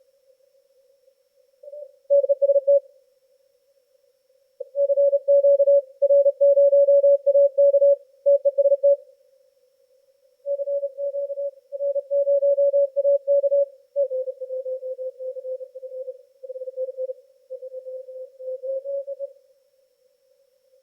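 Morse code (CW) signals heard through a Yaesu FTdx10 transceiver's receiver: a single mid-pitched tone keyed on and off in dots and dashes over a faint band of hiss. About two-thirds of the way through, a second station at a slightly lower pitch takes over.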